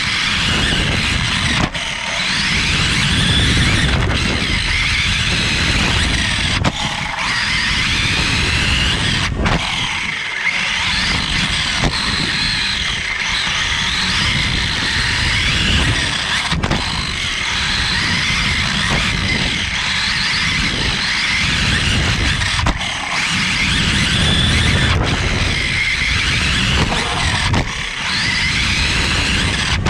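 Onboard sound of a 1/10-scale electric 4WD RC buggy racing: the electric motor whines, its pitch gliding up and down again and again with the throttle, over a low rumble and rattle from the chassis and tyres on the dirt that drops out briefly a few times.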